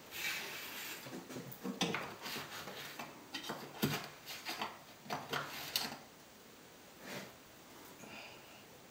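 A hand tool scrapes and knocks against a gypsum imitation-stone wall as wet grout is worked into the joints between the stones. It comes as a string of irregular short scrapes, then turns much quieter after about six seconds.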